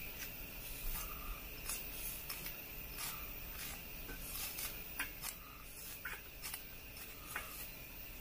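Knife slicing through a green pepper held in the hand, crisp cuts at an uneven pace, about one a second.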